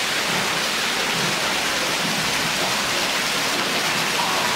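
Small waterfall pouring down a narrow sandstone cleft and splashing onto the rocks below, a steady rush of falling water.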